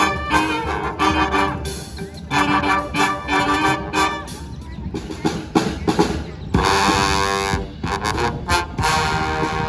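Street brass band playing: horns, trombone among them, in short punchy riffs over drums, with a held chord a little past the middle.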